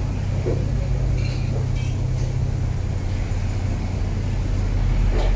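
A steady low mechanical rumble, growing slightly louder near the end.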